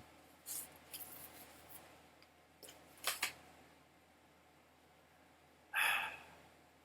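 Faint handling noises: soft rustles and clicks, a sharp double click about three seconds in, and a short breathy hiss near the end.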